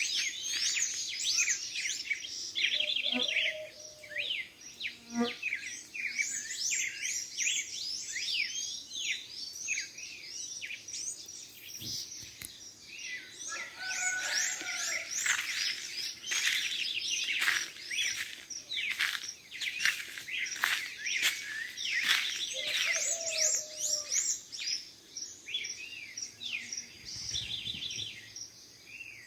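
A dawn chorus of many birds chirping and singing: quick overlapping high chirps and trills throughout, with a lower call breaking in a few times.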